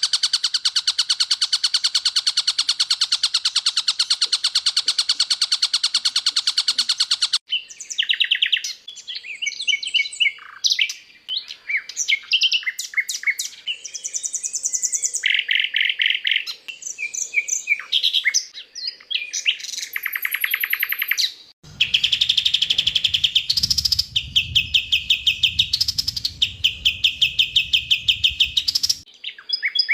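Recorded songbird songs spliced together as a bird tutor track: a long, rapid, unbroken trill, then a run of varied chirps and whistles, then another fast repeated trill with a low hum under it near the end.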